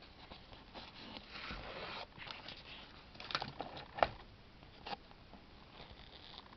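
Handling noise: a stretch of rustling, then a few sharp clicks, the loudest about four seconds in and another about a second later.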